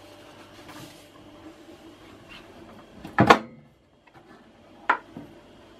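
A wooden galley cupboard door or counter lid knocks once, loudly, about three seconds in, and a sharp click follows near the end, over a faint steady low hum.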